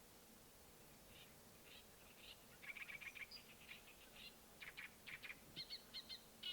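A faint songbird song: a quick, chattering run of short high chirps that starts about a second in and keeps going in bursts.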